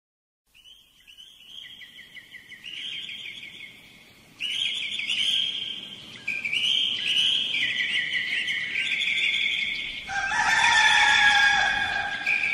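Birds chirping in quick repeated trills, then a rooster crowing about ten seconds in.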